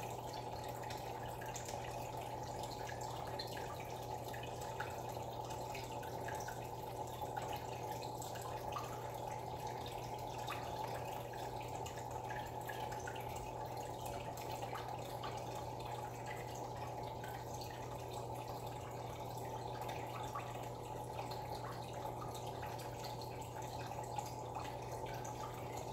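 Aquarium water trickling and splashing at the surface, a steady run of small drips and plinks over a constant low hum.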